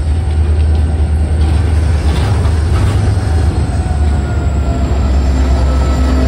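Loud, steady rumble and rattle of a freight train's ballast hopper cars rolling past close by, wheels on rail. In the second half, steady engine tones join in as the trailing diesel locomotive comes alongside.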